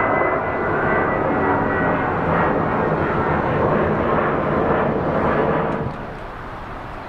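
Airliner's engines running loud as it passes close by, with a fading high whine at first; the sound drops off suddenly about six seconds in.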